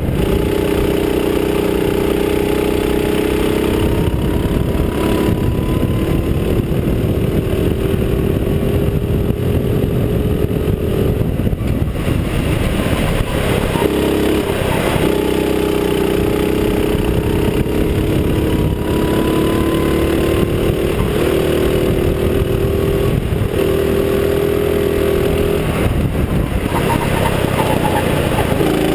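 Go-kart engine heard from on board, running hard with its pitch climbing slowly along the straights and dropping off briefly several times as the throttle is lifted for corners, over steady rushing wind and road noise.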